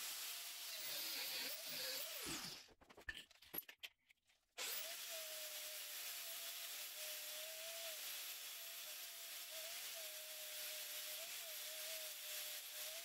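Angle grinder with a cut-off disc cutting steel threaded rod, a steady whine over a hissing grind. It spins down about two seconds in, is quiet apart from a few clicks of handling, then starts again suddenly and cuts on, its whine dipping briefly as the disc bites.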